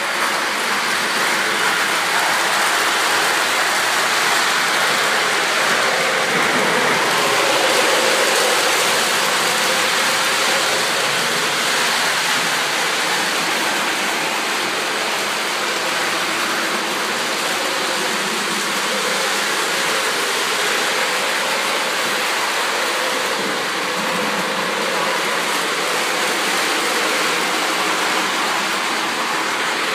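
Lionel O scale model train running on its track: a steady rolling whir.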